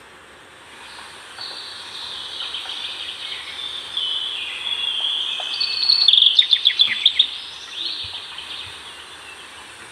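Forest ambience with a songbird singing: phrases that build to a loud, fast run of repeated notes about six to seven seconds in, then fade, over a faint steady background hiss.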